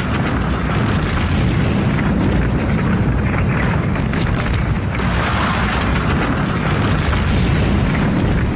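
A steel rocket launch tower collapsing after its demolition charges fire: a continuous low rumbling roar thick with crackling and clatter, swelling about five seconds in.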